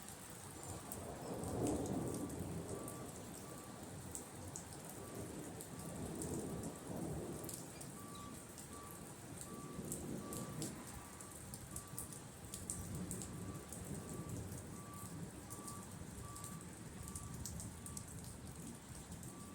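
Thunderstorm rain falling steadily, with single drops ticking sharply close by. Low rumbles of thunder swell and fade about three times, the strongest about two seconds in.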